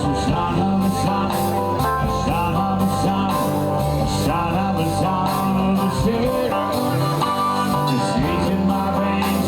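Live rock band music: electric guitar playing bending notes over a steady bass line and drums.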